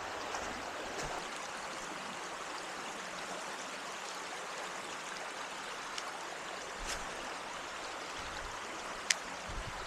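Small creek flowing: a steady rush of running water, with a few light clicks and a sharp click about nine seconds in.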